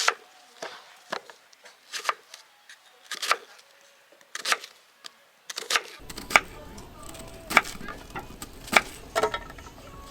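Irregular sharp wooden knocks and clacks, roughly one a second. About six seconds in, a steady low background rumble sets in under them.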